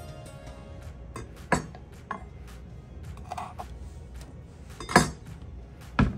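Kitchen utensils and dishes clinking and knocking in a handful of irregular separate strikes, the loudest about five seconds in.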